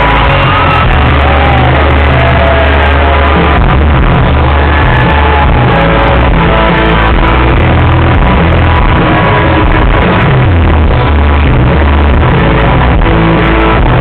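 Live country band playing loud through the concert sound system, with the crowd shouting along.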